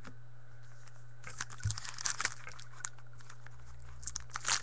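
Wrapper of a pack of football trading cards being torn open and crinkled. The crackling comes in two spells, from about a second in and again near the end.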